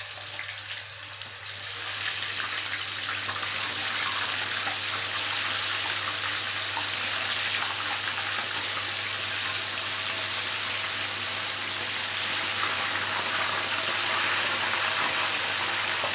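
Tofu deep-frying in hot oil in a wok: a dense, crackling sizzle that grows louder over the first two seconds as fresh pieces go into the oil, then holds steady.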